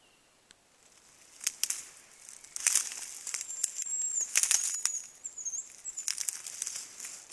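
Hazel grouse whistling: a thin, very high whistle held for about three seconds with a few wavers in pitch. Under it, a crackling rustle of dry leaves and twigs begins about a second in and is the loudest sound.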